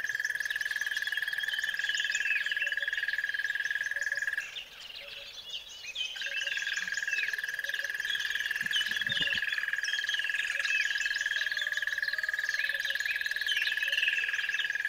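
Nature ambience: many birds chirping and singing over a continuous, fast-pulsing high trill that drops out for about two seconds around four and a half seconds in.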